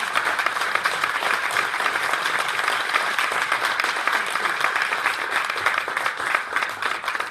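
A congregation applauding: many people clapping together in a dense, steady round.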